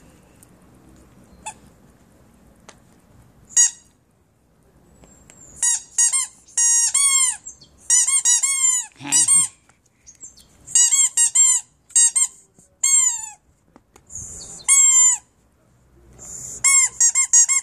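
Bichon Frise puppy biting a spiky rubber squeaky ball, which squeaks again and again in quick runs of short, high squeaks, starting a few seconds in.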